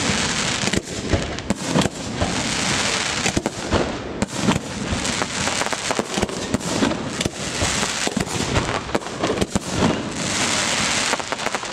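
Aerial firework shells bursting in a rapid, continuous barrage: many sharp bangs in quick succession over a steady hissing rush.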